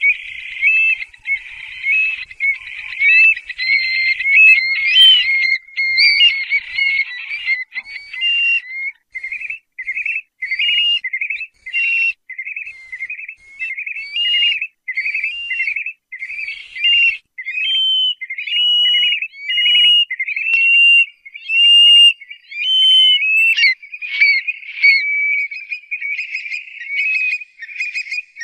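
Eurasian stone-curlews calling: shrill whistled notes that rise and fall, overlapping thickly at first and then, from about eight seconds in, repeated one after another about once a second.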